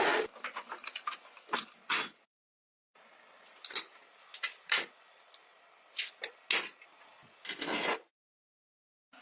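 A series of sharp knocks and clatters of hard objects being handled, in short bursts broken by abrupt dead silences at about two seconds in and again near the end.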